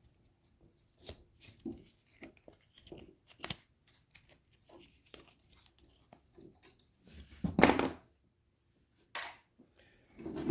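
Hand work on a lithium battery pack's metal and plastic parts: scattered light clicks and taps, then a louder harsh noise lasting under a second about seven and a half seconds in, and a shorter one a little over a second later.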